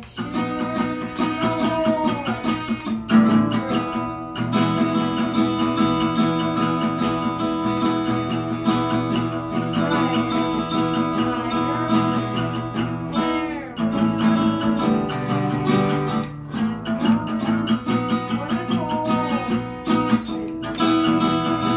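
Cutaway acoustic guitar strummed in steady chords, with a voice singing over it at times.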